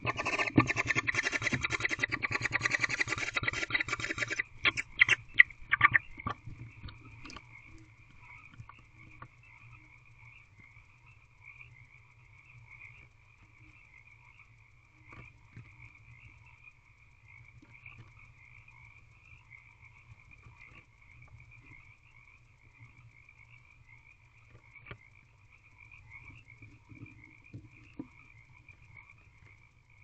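Frogs calling in a steady, pulsing chorus. A loud rough noise fills the first four seconds or so, and a few sharp knocks follow just after.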